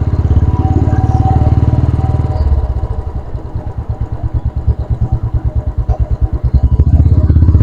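Royal Enfield Classic 350 single-cylinder engine running under way. About two and a half seconds in the throttle eases off and the exhaust slows to separate, evenly spaced thumps, then it picks up to a steady loud run again near the end.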